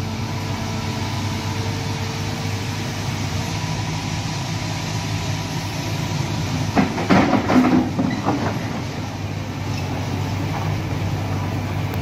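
Crawler excavator's diesel engine running steadily, with a burst of metallic clanking and squealing from about seven to eight and a half seconds in as the steel tracks move down off the trailer.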